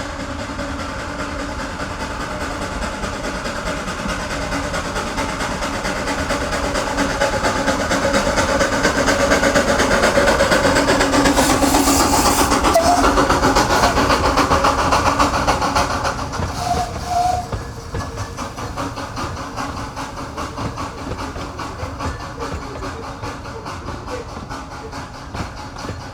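Train passing: a steady mechanical running noise that grows louder to a peak around the middle, with a burst of hiss at its loudest, then fades away.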